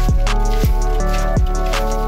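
Background music with sustained chords and deep drum hits that drop in pitch, about one every two-thirds of a second, over light high ticks.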